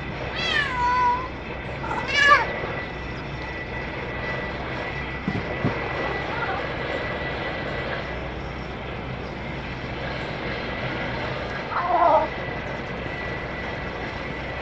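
A cat meowing three times: a long falling meow at the very start, a shorter, louder one about two seconds in, and a brief call around twelve seconds in.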